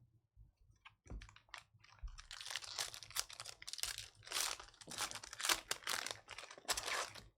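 Packs of trading cards being ripped open: wrappers crinkling and tearing and cards clicking as they are handled, in a quick run of scratchy bursts that stops abruptly near the end.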